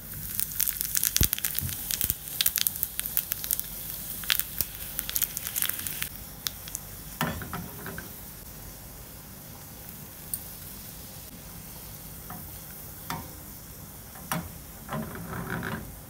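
Cumin seeds spluttering and sizzling in hot oil in a small tadka pan, the tempering (tadka) for dal. Dense crackling for the first six seconds, then a softer hiss with scattered pops, with dried red chillies frying in the oil and two short louder spells near the middle and the end.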